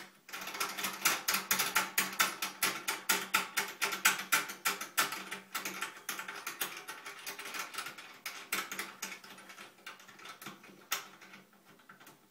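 Rapid, even clicking, about five clicks a second, as the toilet seat's fixing nut is tightened. The clicks slow and fade out near the end.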